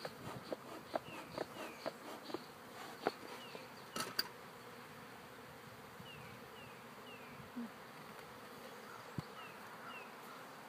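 Honeybees buzzing steadily around an opened hive. Light clicks and knocks come over the first four seconds, then fall away.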